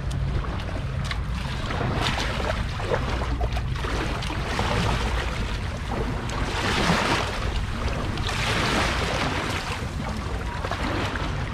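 Shallow seawater splashing and washing over a concrete ramp around a small shark held in the shallows, with a steady low wind rumble on the microphone. The splashing swells louder twice in the second half.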